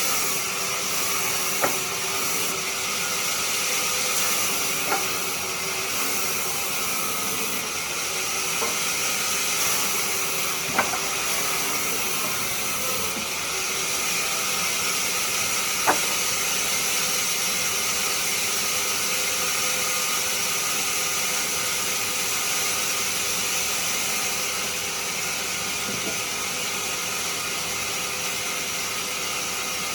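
Woodturning lathe running with a tool cutting the spinning wood: a steady hiss, broken by a few sharp clicks about 2, 5, 9, 11 and 16 seconds in.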